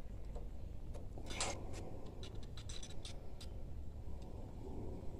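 Light metal clicks and taps as a wrench and a steering tie rod end are handled, with a run of them through the middle. A low steady hum sits underneath.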